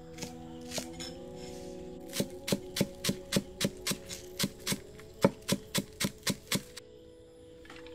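Cleaver chopping green onions on a wooden chopping block: a couple of single knocks, then, about two seconds in, a quick even run of about four chops a second that stops near the end. Soft music with long held tones plays underneath.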